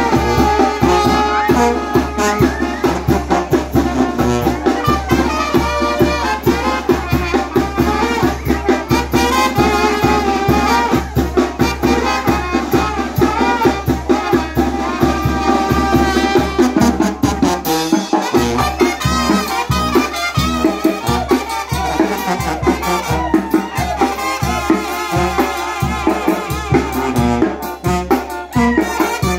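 Small live brass band playing dance music: trumpets carry the tune over a sousaphone bass line, with a drum kit and timbales keeping a steady beat about twice a second. The low end drops out for a moment about two-thirds of the way through.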